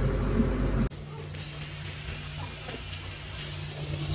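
Steady hiss over a low hum from cooking on a gas stove. A louder stretch of room noise cuts off about a second in.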